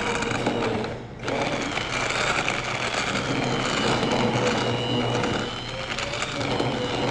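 Immersion hand blender running in a tub of chocolate and hot milk-tea infusion, a steady motor whine that cuts out briefly about a second in and then starts again. It is emulsifying the ganache.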